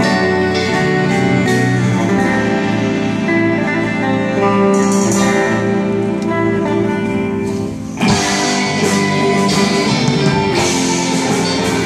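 Live band playing a song on acoustic and electric guitars, violins and cello, drums and keyboard. Just before the middle the music drops back briefly, then comes back in fuller with drums and cymbals.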